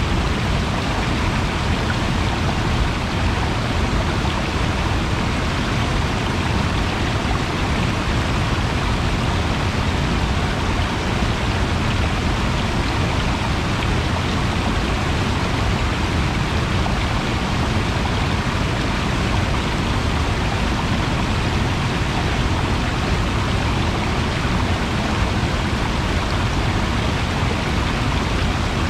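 Steady, loud rushing water, an even unbroken noise with no changes.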